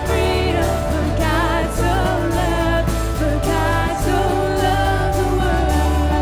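Live worship band playing with a singer, steady bass and drums under a sung melody.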